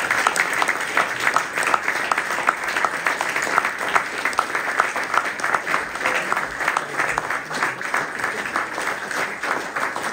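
An audience applauding, many hands clapping at an even level.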